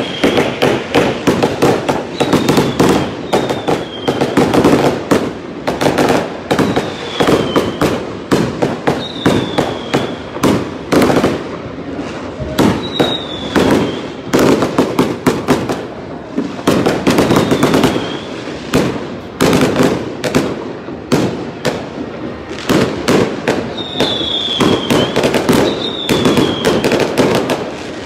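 Fireworks going off in a rapid, continuous string of bangs and crackles, with short falling whistles every second or two.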